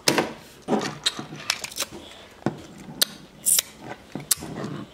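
Irregular sharp clicks, taps and soft breathy rustles very close to the microphone, the sounds of a toddler's face and hands at the camera, with a cheek kiss near the end.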